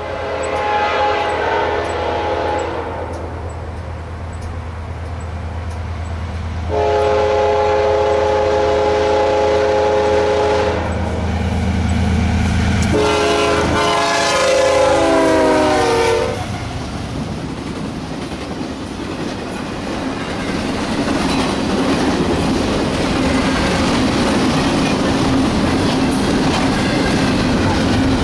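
CSX diesel locomotive's multi-chime air horn sounding three times over a low engine rumble: a blast, a long blast, then a third whose chord drops in pitch as the locomotive passes. After that comes the steady rumble and clatter of intermodal cars rolling by.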